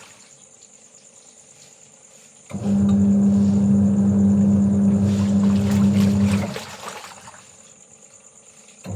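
Washing machine running its wash cycle in bursts: the motor hums with water sloshing for about four seconds, stops, and starts again right at the end. A steady high-pitched insect drone sounds throughout.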